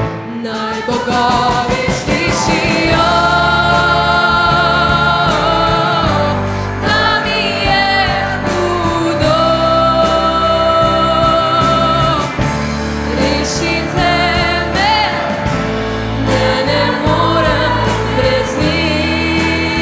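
Mixed choir singing long held notes, accompanied by a band with drums, bass, keyboard and electric guitar.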